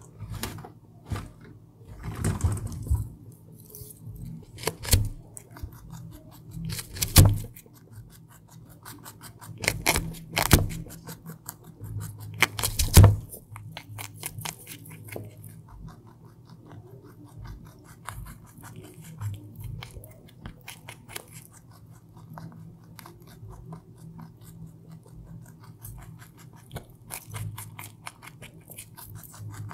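Young rabbit chewing carrot close to the microphone: a fast, continuous run of small crisp crunching clicks, with a few louder clicks in the first half, over a low steady hum.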